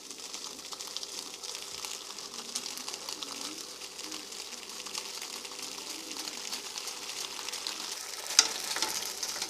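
Thin-sliced bologna frying in its own fat in a dry pan with no oil or butter: a steady sizzle with fine crackling, and one sharp click a little over eight seconds in.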